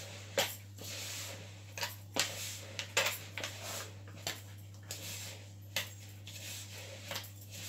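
Hands mixing and squishing soft scone dough in a plastic mixing bowl, with a rubbing, squelching texture and irregular sharp clicks and knocks as the bowl is handled.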